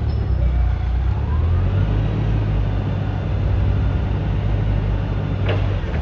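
Hyster 50 forklift engine running steadily, rising in pitch about half a second to two seconds in as the forks are lifted. A sharp clank comes near the end.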